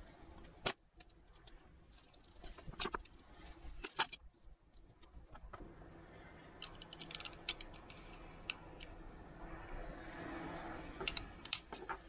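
Small sharp clicks and metallic taps of a bladed metal hand tool and wire being handled, with a soft scraping and ticking stretch from about six to eleven seconds as the blade strips insulation from a single copper conductor.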